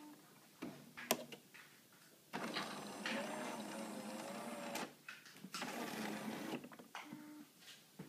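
A Jura automatic coffee machine's motor whirring in two runs, the first about two and a half seconds long and the second about a second, after a sharp click about a second in.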